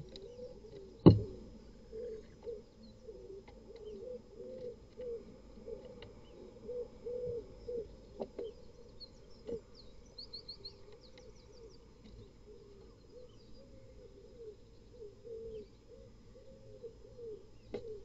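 A single sharp thump about a second in, the loudest sound here, over a steady run of low cooing calls repeated every half second or so. A few quick high chirps come near the middle.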